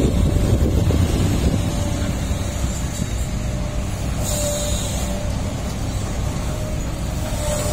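Heavy diesel construction machinery running with a deep, steady rumble, with a brief hiss about four seconds in.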